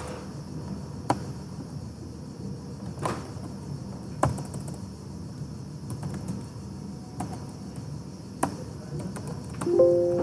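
Steady background noise, a hum low down and a hiss high up, broken by a few scattered sharp clicks. A short pitched tone sounds near the end.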